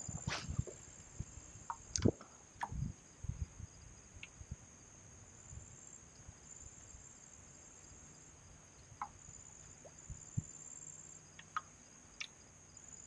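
Steady high-pitched insect chorus from the marsh grass, swelling and fading slightly, with scattered light knocks and clicks, most of them in the first three seconds.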